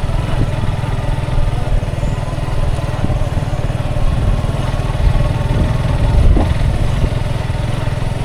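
Motorcycle engine running steadily at low speed while the bike is ridden.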